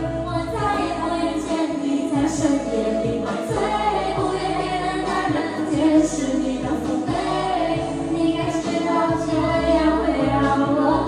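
A woman singing a pop song over a backing track, karaoke-style.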